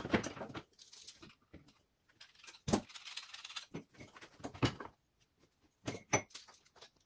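Wooden blocks being handled and set down on a wooden table: scattered knocks and clicks, with a louder knock a little under three seconds in and two more about six seconds in.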